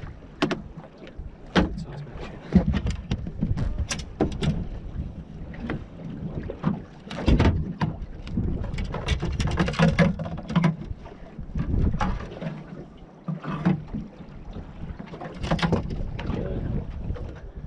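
Irregular knocks and clatters as a freshly landed fish is handled and unhooked from a landing net in the hull of a small aluminium boat, over wind on the microphone and water against the hull.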